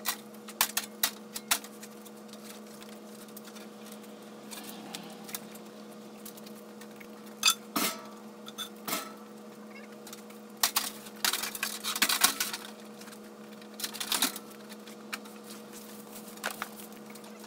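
Scattered metallic clinks and knocks from handling a steel depository safe and its moving straps, over a steady low hum.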